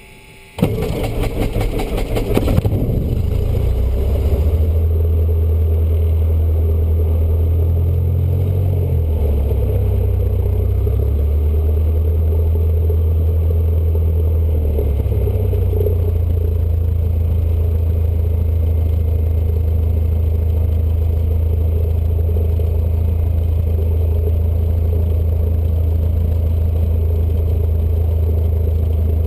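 Cessna 152's Lycoming O-235 four-cylinder engine being started, catching about half a second in after a brief sputtering, then settling into a steady idle heard from inside the cabin. Its pitch steps up and down a few times as the throttle is adjusted.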